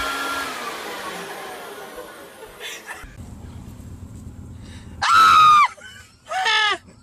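Corded electric leaf blower running with a steady whine that falls in pitch as it winds down and fades over the first few seconds. Then, after a quieter stretch, two short, loud, high-pitched squeals, each dropping in pitch; the second is shorter and quieter.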